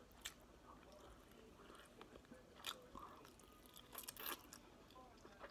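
Soft, close-up eating sounds: a mouthful of hibachi noodles being chewed, with a few faint wet clicks and smacks.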